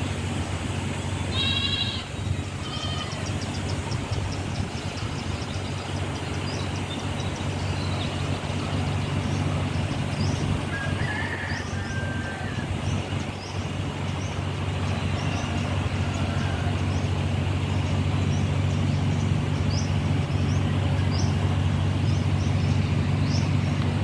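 Outdoor ambience: a steady low rumble, with an animal call about two seconds in and a shorter one soon after. Short high chirps repeat about once a second.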